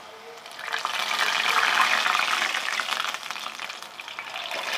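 Jalebi batter sizzling in hot ghee as it is piped into the pan, a dense crackle of frying that swells sharply about a second in and eases off a little near the end.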